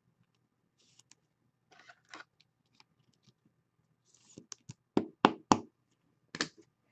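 Hands handling a trading card and a clear plastic card holder: soft sliding and rustling of card and plastic, then three sharp knocks in quick succession about five seconds in and one more a second later as the plastic holder meets the table.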